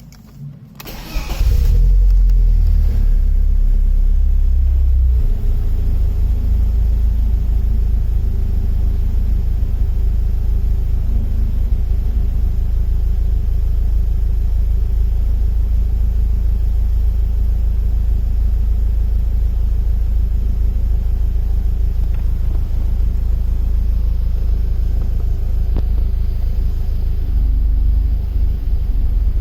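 BMW E36's M44B19 1.9-litre four-cylinder engine starting about a second in, running at a raised idle for a few seconds, then settling to a steady idle. The engine has an intermittent rough idle in which the revs drop, which the owner ties to the oxygen sensor voltage and lambda integrator dropping; the sound of the idle shifts near the end.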